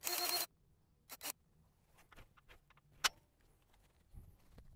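A powered grease gun runs for about half a second with a pulsing whine, pumping grease into the excavator's track adjuster to tension the rubber track, then cuts off suddenly. Two light clicks follow about a second in, and a sharp click about three seconds in.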